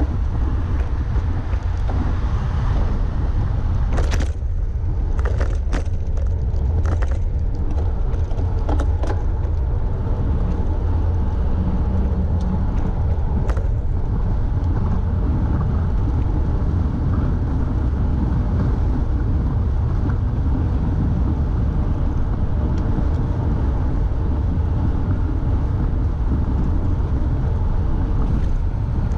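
Wind buffeting a GoPro's microphone at around 20 to 30 mph, a steady, heavy low rumble, mixed with highway traffic running alongside. A few sharp knocks come between about four and nine seconds in.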